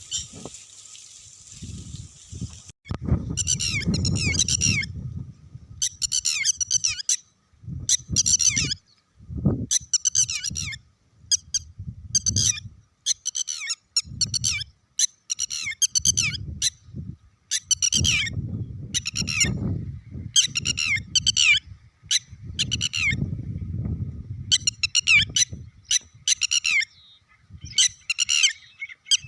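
Birds chirping in repeated short bursts of quick, falling high notes, about fifteen bursts in all, starting about three seconds in, over an on-and-off low rumble.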